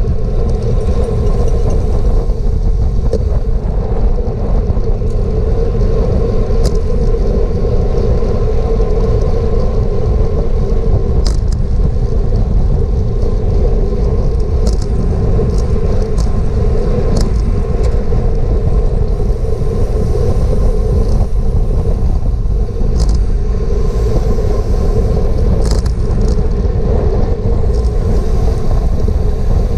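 Wind buffeting a bike-mounted GoPro's microphone at racing speed on a road bicycle, a loud steady rumble with a constant hum over it and a few sharp ticks scattered throughout.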